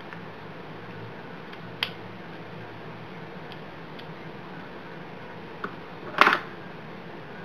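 Steady background hiss with a low hum, broken by a sharp click about two seconds in, a few faint ticks, and a louder short clack a little after six seconds.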